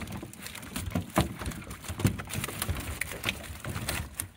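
Irregular knocks and rattles of big blue catfish flopping inside a hoop net's hoops on the metal floor of a jon boat.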